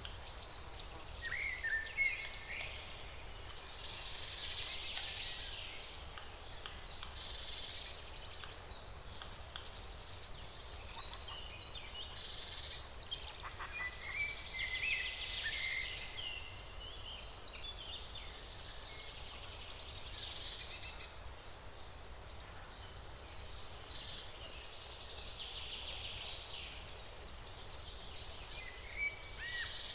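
Forest ambience with frogs croaking in rapid pulsed trills that come and go every few seconds, mixed with short high chirps and a steady low background rumble.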